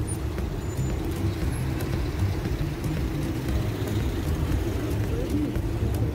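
City street traffic: car engines running as cars drive slowly past close by at a crossing, a steady low rumble.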